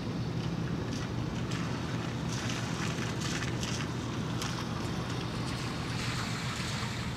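Wind buffeting the microphone and water lapping, over a steady low hum.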